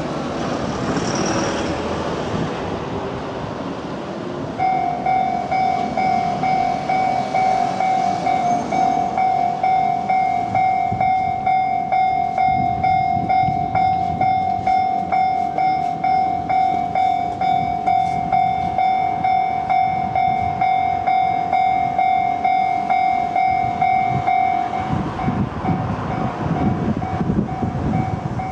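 Japanese railway level crossing alarm switching on about four and a half seconds in: a loud, steady-pitched 'kan-kan' warning ding repeating in a fast rhythm. It signals that a train is approaching the crossing. Near the end the low rumble of the approaching train rises under the alarm, which turns choppy.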